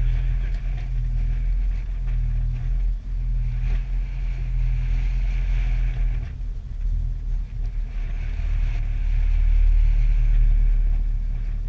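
Fishing boat's engine running as a steady low rumble, with a hiss of wind and water that swells and fades over it.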